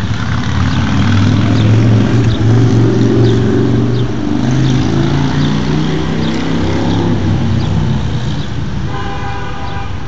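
Passing road traffic: a motor vehicle's engine drones by, loudest in the first half and slowly dropping in pitch as it fades, then a short car horn toot about nine seconds in.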